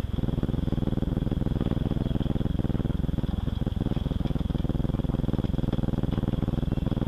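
An engine running steadily with a fast, even chug.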